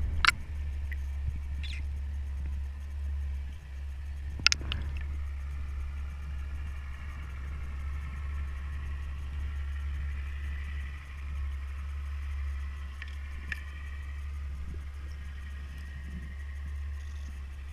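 Underwater sound: a steady low rumble with a faint wavering whine above it, typical of a boat motor carried through the water, and two sharp clicks, one just after the start and one about four and a half seconds in.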